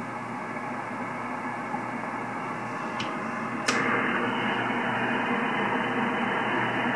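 Shortwave receiver hiss from an ICOM IC-7410 transceiver tuned in sideband on the 10-metre band, as its dial is turned between stations. A short click about three and a half seconds in, after which the hiss is louder.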